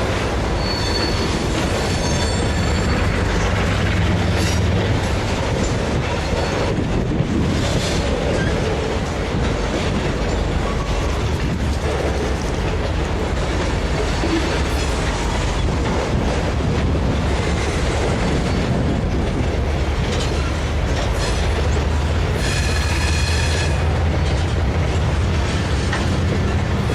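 A train running, a steady heavy rumble with a brief high whine of several tones near the end.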